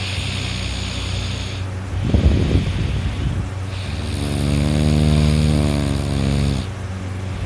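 A person snoring loudly while asleep. A short rattling snore comes about two seconds in, then a longer snore with a steady drone-like pitch lasting about two and a half seconds.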